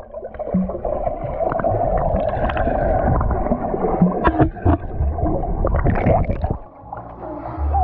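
Water splashing and gurgling, with irregular knocks.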